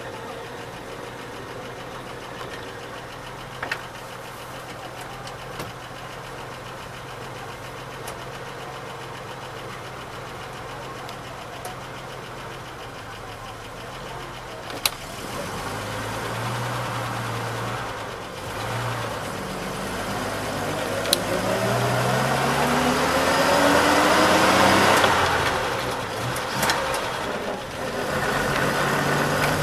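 1949 Bedford OB coach's straight-six petrol engine idling with a few sharp clicks, heard from the driver's cab. About halfway through it pulls away, the engine note rising and getting louder as the coach accelerates, then drops briefly near the end for a gear change before running on steadily.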